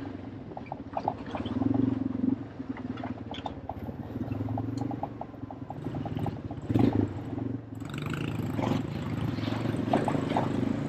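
Small vehicle engine running cold on the choke, its speed rising and falling unevenly, with a brief louder surge about seven seconds in.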